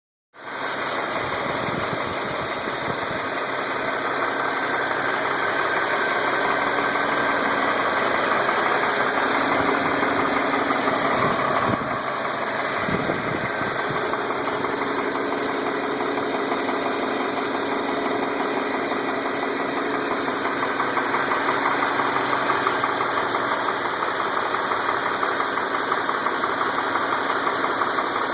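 BMW E46 325i's M54 2.5-litre straight-six engine running steadily, with a faint, rapid tapping/ticking under the engine note. The noise recently started and its cause is unknown to the owner.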